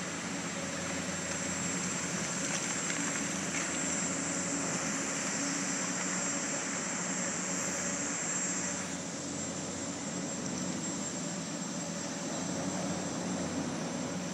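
Diesel engines of excavators working a construction dig, running with a steady drone; the hissy upper part of the noise eases about nine seconds in.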